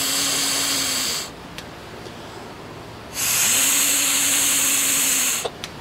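Two long, hard blows of breath through a small inline micro-hydro turbine generator, each a rushing hiss with a faint low hum from the turbine that rises as it spins up and drops away as the blow ends. The turbine turns under breath alone, but only weakly.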